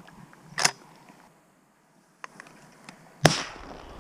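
Shotgun shots: a sharp crack just under a second in, then a loud blast about three seconds in that echoes away, and another loud blast right at the end.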